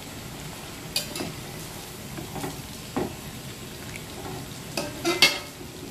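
Wooden spatula stirring seafood tom yum soup in a pot, knocking against the pot a few times: about a second in, at three seconds, and a quick cluster near the end, the loudest. A steady hiss from the pot runs underneath.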